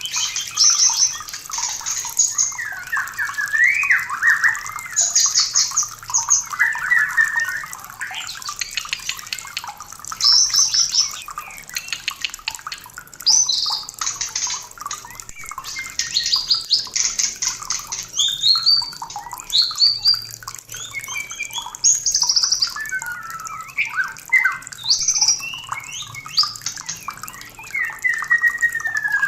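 White-rumped shama (murai batu) in breeding condition singing a long, varied song without pause: fast rattling trills, rising and falling whistles and short harsh notes.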